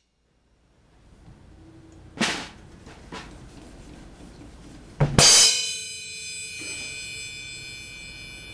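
Drum kit played sparsely: a few separate drum hits in the first three seconds, then a loud cymbal crash about five seconds in that keeps ringing, slowly fading.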